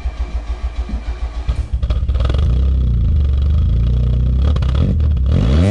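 Exhaust of a Vauxhall Corsa B rally car's 1.4-litre 8-valve four-cylinder engine, heard right at the tailpipe. It cranks in even pulses for about two seconds, catches and runs steadily, then revs up near the end and cuts off suddenly.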